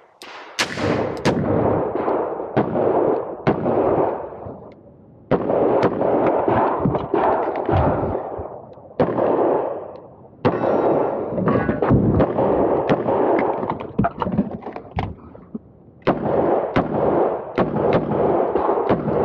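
Smith & Wesson 625 revolver fired in quick strings of shots, with short pauses between the strings.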